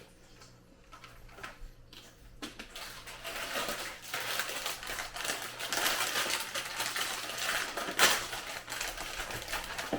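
Crackling, crinkling and small clicks of candy and its packaging being handled, starting about two and a half seconds in, with one sharper click near the end.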